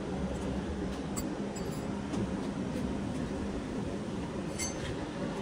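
A steady low hum, with a few faint light clinks over it.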